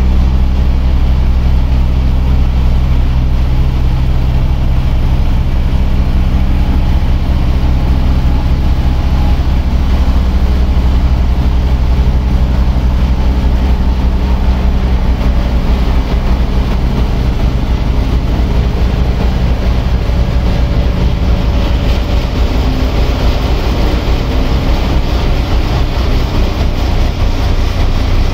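Diesel engine of a single-drum road roller working close by while it compacts fresh asphalt. It makes a loud, steady low drone.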